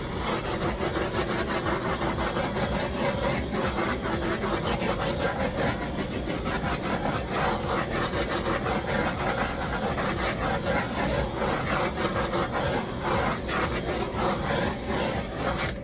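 Hair dryer blowing on its high-fan, cool setting: a steady rushing of air with a rough, fluttering texture that starts and stops abruptly.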